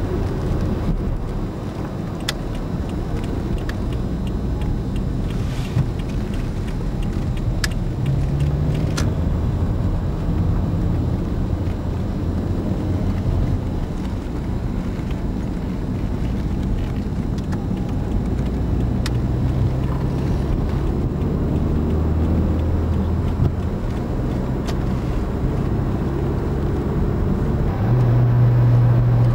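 Car driving at highway speed, heard from inside the cabin: a steady drone of road and engine noise, with the engine's low hum shifting in pitch a few times and a few faint clicks.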